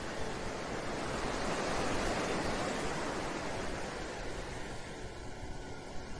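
Ocean surf washing in, swelling about two seconds in and then ebbing away.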